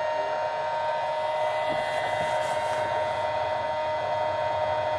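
Steady high-pitched whine of an RC plane's brushless electric motor (AX2814 980KV) and pusher propeller running under power as the Skywalker climbs out of an aborted landing.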